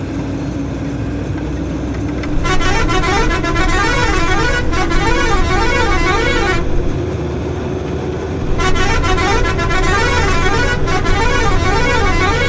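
A vehicle's multi-tone musical horn sounds in two long blasts of about four seconds each, its pitch warbling up and down a couple of times a second, over the steady running of a vehicle engine and road noise.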